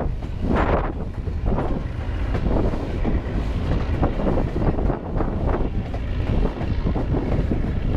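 Wind buffeting the microphone of a camera held out from a moving White Pass & Yukon Route passenger train, in irregular gusts over a steady low rumble of the train running.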